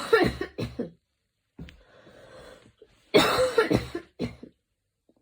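A woman coughing in a fit: a cluster of several sharp coughs at the start, breathing in between, then another cluster of coughs about three seconds in.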